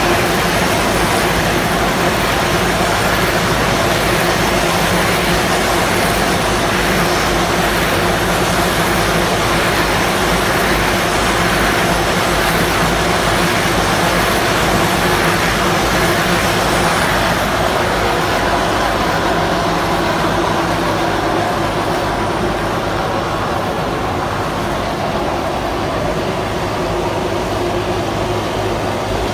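Caterpillar 432F2 backhoe loader's diesel engine running steadily and loudly, with a broad mechanical hiss over it that eases off about two-thirds of the way through.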